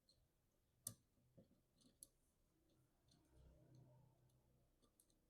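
Faint, scattered clicks of small metal nuts and washers being handled and fitted onto the bolts of a glass ink tank, one sharper click about a second in.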